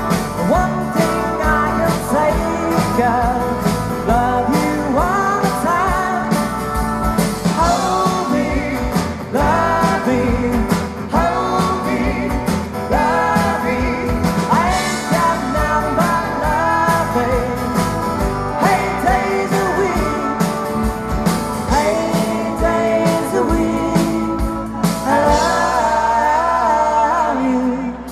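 Live band playing with a male lead singer: acoustic guitar, keyboards, bass guitar and drums. Near the end the bass and drums drop back for a few seconds.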